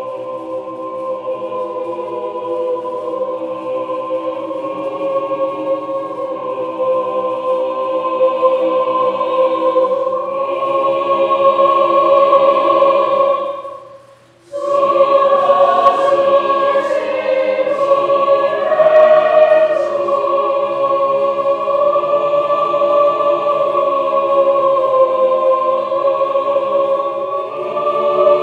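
Mixed choir singing long held chords, the chord changing every few seconds. They cut off sharply about halfway through and come back in a moment later.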